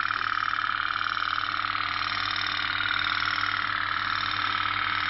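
Candle-heated toy pop-pop steam boat running, its little boiler pulsing steam and water out through its two stern pipes with a rapid, steady putt-putt that sounds like a real boat's engine.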